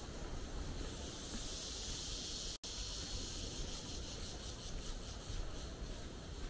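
Steady hissing noise with a low rumble beneath it, broken by a split-second total dropout about two and a half seconds in.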